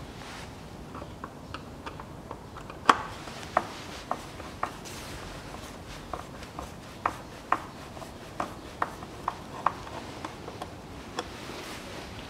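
Sharp, irregular clicks and taps, roughly one or two a second, from a screwdriver and fingers working the plastic fasteners of a car's engine-bay air intake and air filter box.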